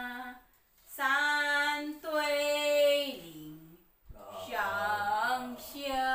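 A woman singing a simple song unaccompanied, in Taiwanese, in short phrases of held notes with brief pauses between them.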